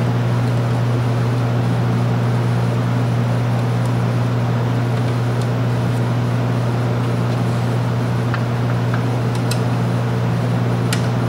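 A steady low machine hum with evenly spaced overtones, unchanging throughout. A few faint clicks near the end come from hands working the wiring connections at the alternator.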